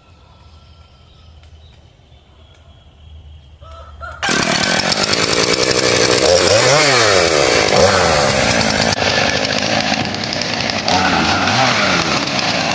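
Chainsaw running hard, cutting wood for firewood; it starts abruptly about four seconds in, its pitch rising and falling as it works, after a quieter stretch of yard background.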